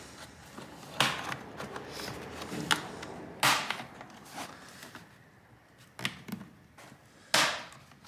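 Plastic retaining clips of a laptop's recycled-plastic bottom cover snapping loose as a guitar pick pries along the seam: several sharp snaps a second or two apart, the loudest near the end, with faint scraping between them.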